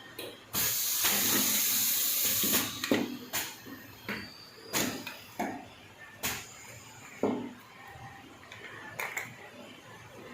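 Cup filling and sealing machine at work: a loud rushing hiss for about two seconds, then a run of irregular sharp clunks, roughly one every half second to second.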